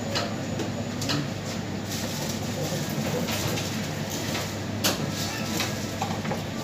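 Steady background noise with a scatter of short clicks and knocks, the sharpest about five seconds in.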